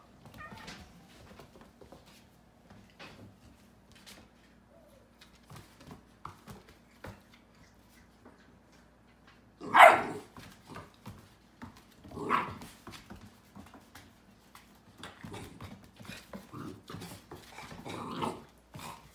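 Pit bull puppy barking while play-fighting: one loud bark about halfway through, a second a couple of seconds later and softer barks near the end, over light scrabbling of paws and claws on a wooden floor.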